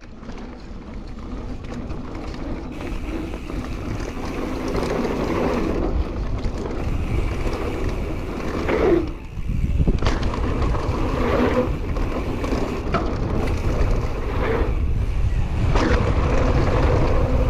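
Wind buffeting the action camera's microphone and mountain-bike tyres rolling fast over a packed-dirt trail, with the bike knocking and rattling over bumps a few times. It gets louder as the speed builds.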